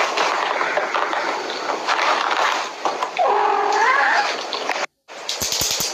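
A kitten meowing once, a single drawn-out call about three seconds in, over a loud steady background noise. Near the end the sound drops out briefly, then a few low knocks follow.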